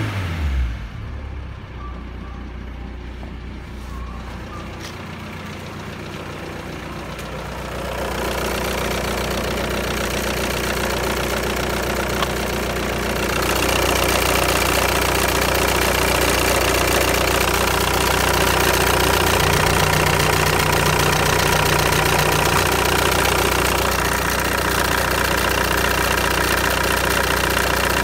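Ford Galaxy's 1.9 TDI (AHU) four-cylinder turbodiesel engine running. Its revs drop back from a blip to a steady idle in the first second. About eight seconds in, and again from about thirteen seconds, it grows louder and more clattery as it is heard up close in the open engine bay rather than from the cabin.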